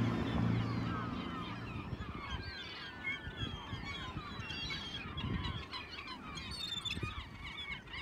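A flock of gulls calling, many short cries overlapping. A boat motor's low drone is heard in the first second and fades out.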